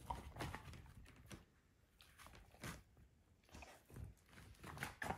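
A dog gnawing a lamb bone treat: irregular crunches and clicks of teeth on bone, coming in short clusters with pauses between.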